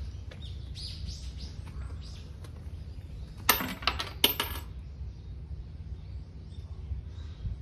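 Coins tossed into a shrine offertory box: a quick cluster of bright metallic clinks, lasting about a second, midway through.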